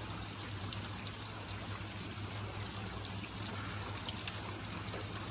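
Heavy rain falling, a steady hiss with scattered faint drip ticks.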